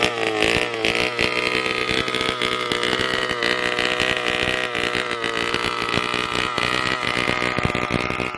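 25cc two-stroke petrol engine of a large-scale RC car running after a pull start, with a chainsaw-like sound. Its revs rise and fall briefly at first, then it settles into a steady idle.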